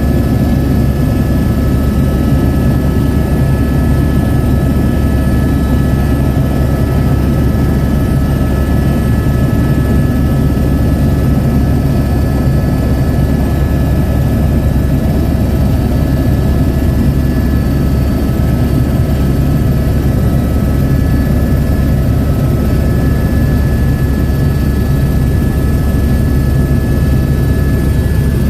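Helicopter in flight, its rotor and engine running steadily and loud, with a constant high whine over a deep rumble.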